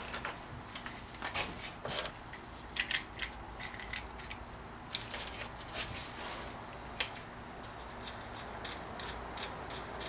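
Scattered small clicks and taps from handling a Dremel rotary tool while its cut-off wheel is changed, with the tool switched off.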